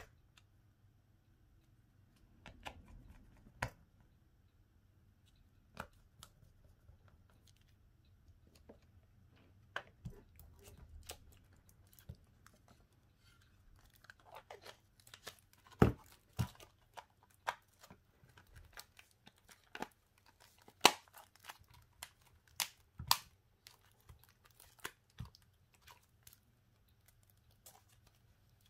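Hands working on a smartphone and its repair parts: quiet, irregular sharp clicks and taps, with a few louder snaps in the second half and brief soft scuffing noises in between.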